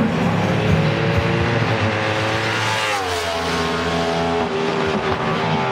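A 1000 cc inline-four superbike at high revs, its engine note climbing as it approaches, then dropping sharply in pitch as it passes about three seconds in.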